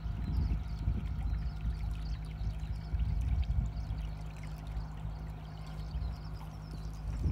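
Wind rumbling and buffeting on the microphone, with a faint steady hum from a receding electric train that thins out about halfway through.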